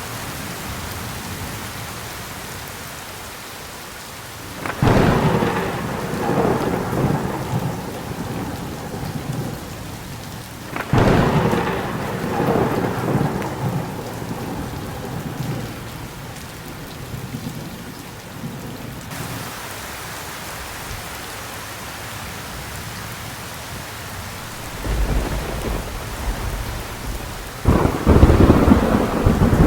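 Thunderstorm: steady heavy rain with thunder. There are sharp cracks about 5 and 11 seconds in, each rolling off into several seconds of rumble. A low rumble comes in about 25 seconds in and builds to a loud crack near the end.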